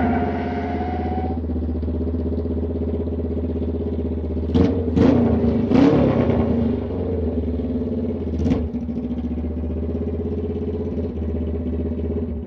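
Motorcycle engine idling steadily, with four quick throttle blips around the middle. A higher whine dies away about a second and a half in.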